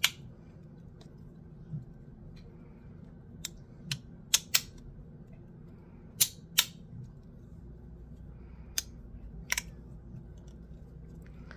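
Bean Slider fidget toy's metal halves clicking as they are slid apart and snapped back together: about ten sharp clicks at uneven intervals, several in quick pairs.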